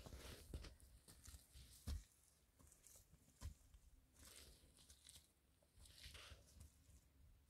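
Faint footsteps crunching and rustling on a dirt path covered with dry leaves, stones and patches of snow, with a couple of soft thumps from footfalls.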